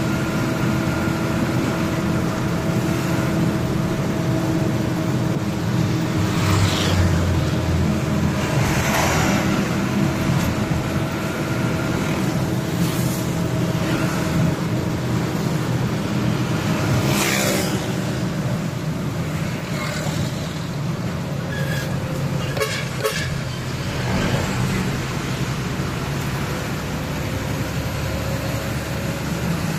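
Truck engine running and road noise heard inside the cab while driving through city traffic, with a steady hum. Several passing vehicles rush by, and a horn toots briefly in the traffic.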